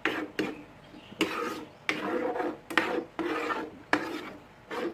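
Spoon scraping and stirring through mince and sliced hot dog in sauce in a frying pan: a run of about eight rasping strokes, one every half second or so.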